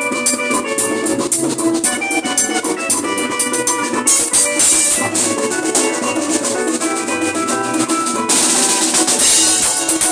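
Music with a fast drum-kit beat and quick, crisp percussion ticks under a bright melody of short pitched notes. About eight seconds in, a hissy cymbal-like wash comes in over the beat.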